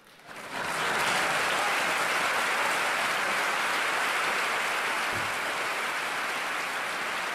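A large audience applauding: the clapping swells in within the first second and then holds steady.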